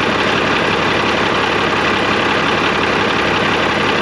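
Cummins L10 inline-six diesel engine idling steadily, loud and close up from the engine bay.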